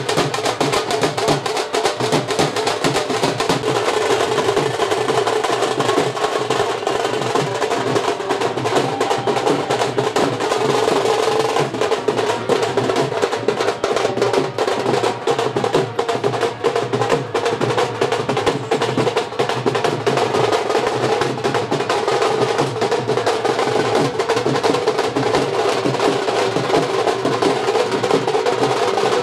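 A Punjabi dhol drum troupe playing dense, unbroken drumming.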